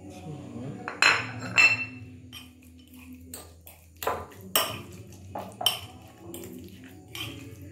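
A metal fork clinking and scraping against a bowl while stirring a corned beef and spring onion filling. Two loud ringing clinks come about a second in, then scattered lighter taps as the stirring goes on.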